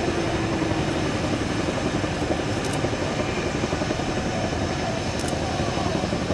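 Aircraft engines running steadily, a dense continuous rumble with a faint tone that sinks a little in the first second.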